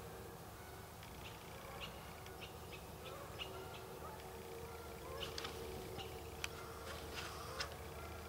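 Small birds chirping in short, scattered calls, busier in the second half, with a few sharp clicks among them.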